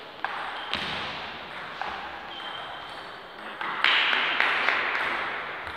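Table tennis ball clicking sharply off bats and table in single knocks a second or so apart, with a short high ping in the middle. About four seconds in comes a louder rush of noise with several more knocks.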